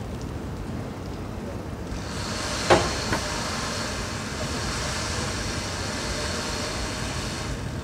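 Low rumble of a pickup truck pulling a boat trailer up a wet boat ramp. About two seconds in, a steady hiss sets in and runs until just before the end, with two sharp knocks about half a second apart near its start.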